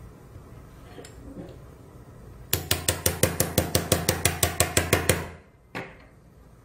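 Mallet rapidly tapping an awl into a synthetic shoulder bone model, about seven sharp strikes a second for nearly three seconds, then one last strike. This is the punching of the pilot hole for the medial suture anchor.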